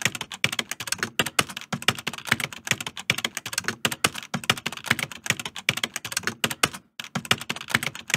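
Keyboard typing sound effect: rapid, uneven keystrokes clicking in step with on-screen text being typed out letter by letter, with a brief pause about seven seconds in.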